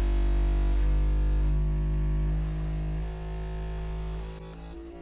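Bambu Lab A1 3D printer running its vibration-compensation calibration: the stepper motors shake the toolhead and bed at set test frequencies, giving a loud, steady low hum whose pitch steps to a new note every second or so. It gets quieter about three seconds in.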